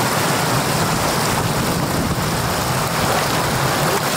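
Shallow floodwater rushing across a road, a steady loud wash of moving water.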